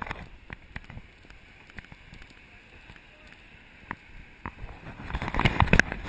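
Footsteps on wooden stairs and a wooden bridge, heard through a body-worn action camera as scattered knocks over a faint steady hiss. A louder burst of knocking and rubbing comes about five seconds in.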